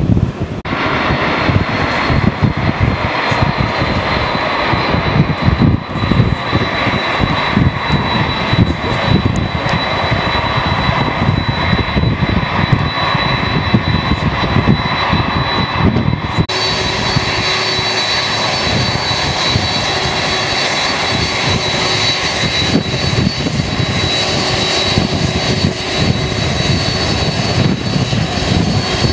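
Boeing 747-400F's four jet engines running, a loud steady roar with a high whine, as the freighter moves onto the runway for takeoff. About halfway through, the whine steps higher and the roar brightens as the engines power up.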